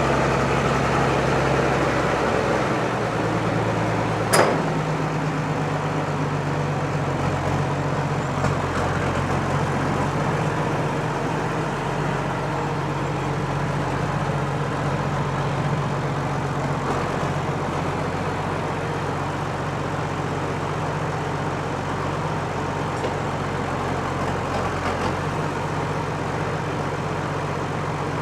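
Farm machine engine running steadily, its pitch shifting down a little about two and a half seconds in, with one sharp knock about four seconds in.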